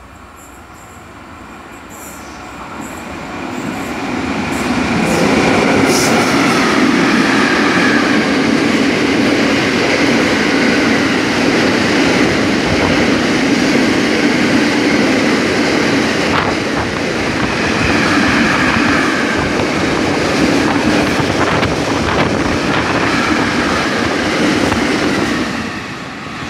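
Container freight train running through at speed: a continuous rumble and clatter of wagon wheels on the rails. It builds over the first five seconds as the train comes close, then stays loud and steady.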